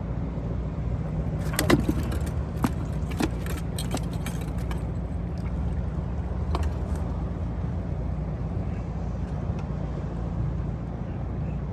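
Boat motor running at a steady low hum while trolling, with a few light clicks and knocks of fishing gear in the boat, the sharpest about two seconds in.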